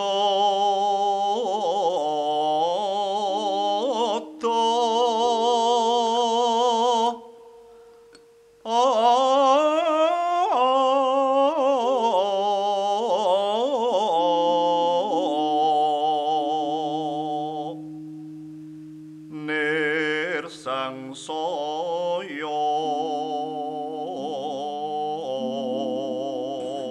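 A woman singing a solo Javanese vocal line in slendro, in long phrases with wide vibrato and short pauses between them, which fits an unaccompanied bawa opening. Soft sustained low notes sound beneath the voice.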